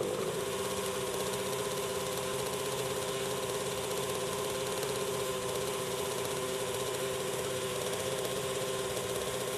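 Radio-controlled model helicopter's engine running steadily at idle on the ground, one unchanging drone, over an even hiss from the flares burning on the airframe.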